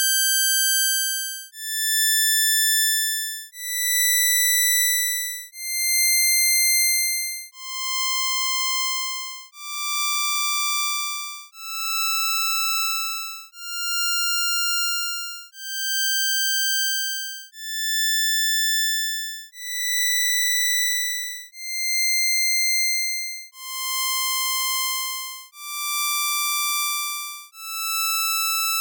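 Synthesized buzzy tones from a Csound impulse train passed through simple FIR low-pass filters. They come as a series of notes about two seconds long, each swelling in and fading out, climbing in pitch step by step and then dropping back. The sequence starts again, a little quieter, about eight seconds in, as the filter changes from one-tap to two-tap.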